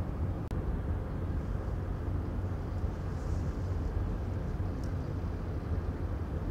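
Low, steady diesel engine rumble from a harbour tug working alongside a frigate, with a momentary dropout about half a second in.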